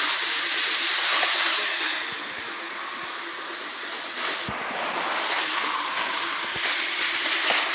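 Toy train giving a steady steam-like hiss. The hiss is louder for the first two seconds, softer in the middle, and swells again near the end.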